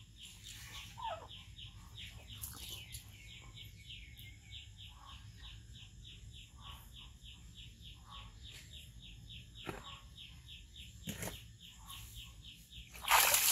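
Baby macaque moving in a plastic tub of water, making small splashes, with a loud splash near the end. A steady rapid chirping, about four short chirps a second, runs underneath throughout.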